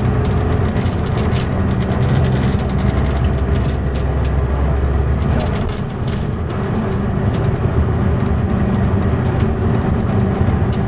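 Cabin noise of a Mercedes-Benz O560 Intouro bus on the move: the diesel engine's low drone and road noise, with many light rattles and clicks. The drone and overall loudness dip briefly about six seconds in.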